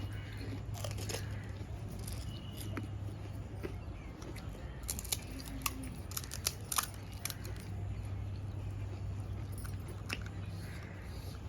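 Crisp panipuri shells being bitten and cracked while eating, a scatter of sharp crunchy clicks that is busiest in the middle, over a steady low hum.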